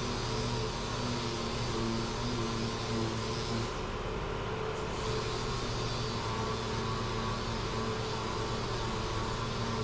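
Dual-action (DA) sander running steadily against a plastic car bumper, sanding it flat, its pitch shifting slightly partway through.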